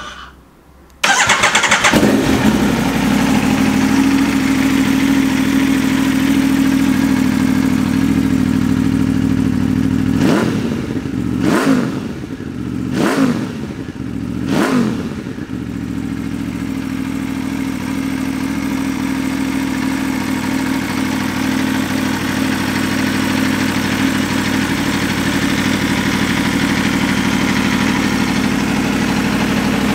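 2013 Aprilia Tuono V4 R's 1000cc V4 engine, breathing through an aftermarket Blackwidow carbon end can, starts about a second in and settles into a steady idle. Between about 10 and 15 seconds it is blipped four times, the revs rising and falling each time, then idles on.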